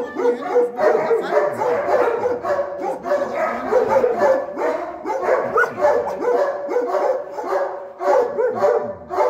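Several dogs barking, yipping and whining at once, overlapping with no break.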